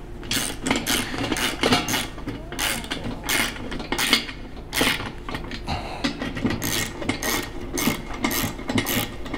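Ratcheting hand tool clicking in short repeated strokes, about two to three a second, as screws are tightened into the brass threads of a ship light's top fitting.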